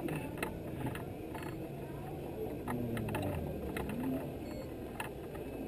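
Irregular clicks and creaks over a low running hum from the slow-moving, light-decorated parade vehicle carrying the camera.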